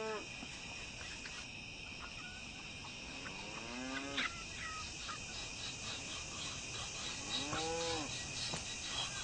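Long farm-animal calls, each rising and falling in pitch: one about three seconds in and another about seven seconds in, over a steady high insect drone.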